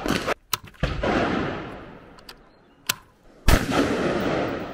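Semi-automatic carbine in .223 Remington firing: two shots about two and a half seconds apart, each with a long echoing tail.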